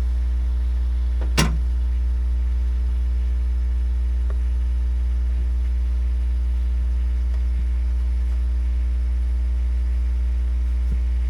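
An engine running steadily at idle, a constant low drone, with one sharp click about a second and a half in.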